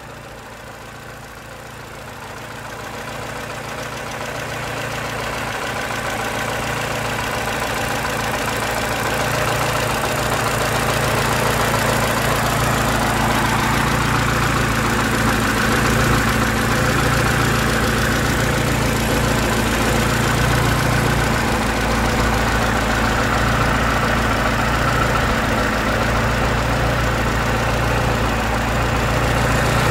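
Naturally aspirated 1.5-litre inline-four, 8-valve single-overhead-cam engine of a 2008 Chevrolet Lanos idling steadily with the hood open. It gets louder over the first ten seconds or so, then holds level.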